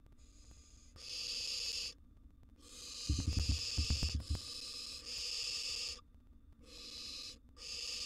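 Barn owl nestlings giving their harsh hissing, snore-like begging calls, each about a second long, repeated over and over with short gaps. A quick run of low thumps sounds about three seconds in.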